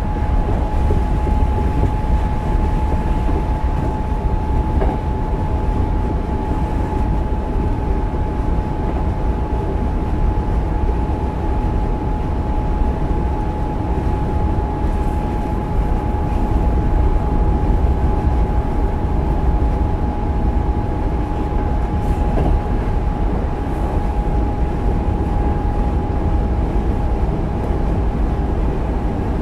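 Running sound inside a Hankyu 8000-series electric train car with Toshiba GTO-VVVF control, travelling at a steady speed: a deep rumble of wheels on rail with a steady high tone and a couple of faint clicks.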